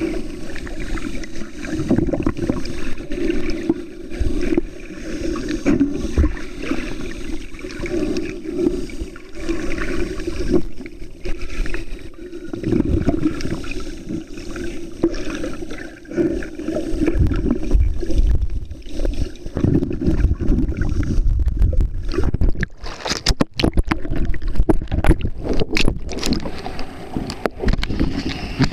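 Muffled underwater noise of seawater moving around a waterproof camera held by a snorkeller: a low, uneven rushing and sloshing. In the last few seconds it breaks into sharp crackles and knocks.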